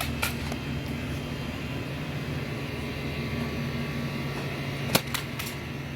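A steady low motor hum, with a few sharp clicks: one just after the start and a cluster about five seconds in, the loudest of them.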